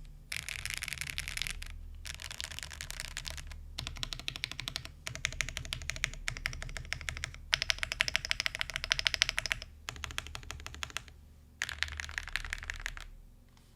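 Fast typing on a custom 80% mechanical keyboard with lubed Gateron Oil King linear switches on an FR4 plate and lubed stabilizers: rapid keystrokes in runs of a second or two, broken by short pauses, trailing off near the end.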